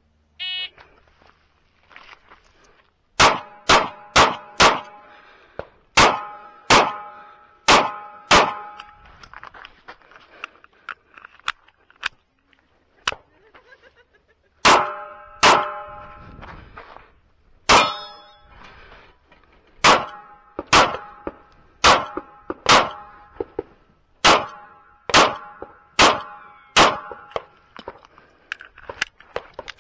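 Short shot-timer start beep, then a Sig Sauer P365 9mm pistol firing about two dozen shots, mostly in quick pairs, in two strings with a pause of several seconds between them. Several hits set steel targets ringing after the shot.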